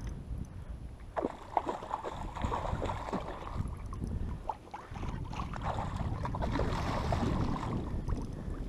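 Water splashing and sloshing as a hooked longtail tuna thrashes at the surface beside a kayak, with wind rumbling on the microphone. The splashing is busiest from about a second in to about halfway through.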